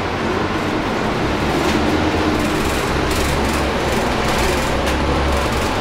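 Cabin noise on the upper deck of a Volvo B9TL double-decker bus under way. The rear-mounted six-cylinder diesel gives a steady low rumble that grows stronger about halfway through, over road noise and small rattles from the body.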